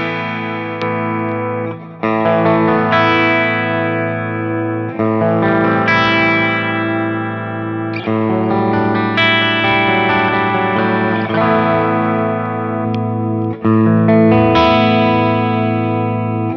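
Harley Benton Fusion II electric guitar played with a clean tone through an Axe-FX III modelling a Fender Princeton amp. Chords are struck and left to ring, with a new chord every one to four seconds.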